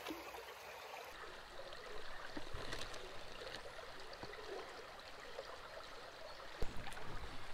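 Steady rush of flowing creek water, with a few faint clicks scattered through it.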